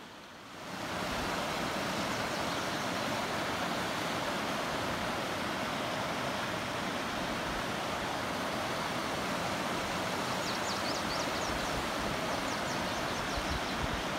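Creek water rushing steadily over rocks, a constant even hiss that swells up about a second in. Faint quick runs of high bird chirps come in twice near the end.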